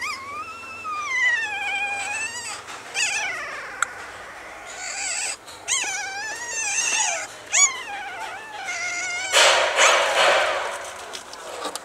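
Newborn puppies whimpering: a string of high, wavering cries that rise and fall, one after another. Near the end a loud rustling scuffle takes over.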